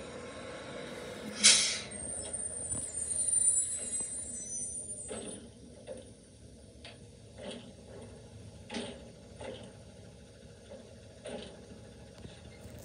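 Garbage truck pulling up and stopping, heard through a house window: a sharp burst of air-brake hiss, then a high brake squeal for a couple of seconds, followed by a few scattered short knocks.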